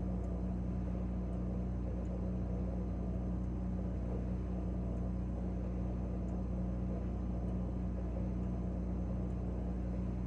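Refrigerator running, a steady low machine hum heard from inside the closed fridge.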